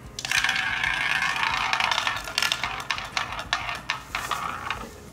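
Ball spinning around a small tabletop roulette wheel: a rolling rattle full of quick clicks that slows and thins into scattered clicks near the end as the ball drops among the pockets.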